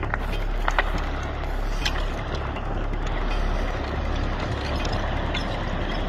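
Steady low rumbling outdoor noise, with a few brief faint high-pitched sounds about a second and two seconds in.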